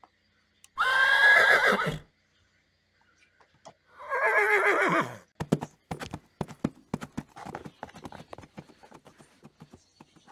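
Sound-effect recording of a horse whinnying twice, each call falling in pitch, followed by a quick run of hoofbeats clip-clopping.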